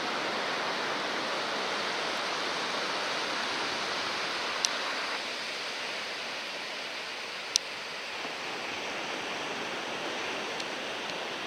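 Steady wash of small ocean surf breaking on the beach, an even rushing noise that drops a little about five seconds in. Two short sharp clicks are heard in the middle.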